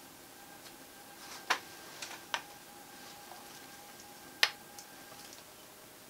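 Small magnetic map blocks clicking against each other as they are picked up and snapped into place: a few sharp separate clicks, the loudest about a second and a half in and again near four and a half seconds.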